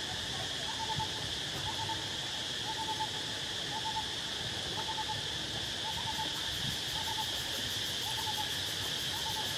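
A steady insect drone with a bird repeating a short low call about once a second.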